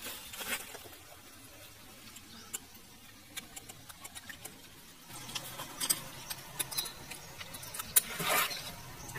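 Sparse light clicks and rattles of a bicycle chain and small sprocket being handled and fitted by hand onto a bamboo stake, with a louder scrape about eight seconds in.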